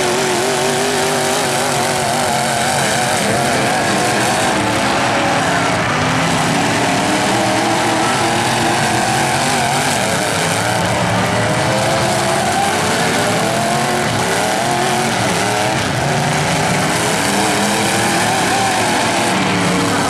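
Several demolition-derby truck engines running and revving at once, their pitches wavering up and down.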